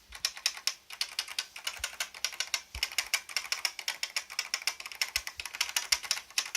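Typing on a Codegen CG-101F keyboard with Futaba clicky blade-spring switches: a rapid run of sharp, crisp clicks, many keystrokes a second, with a few duller low thumps among them.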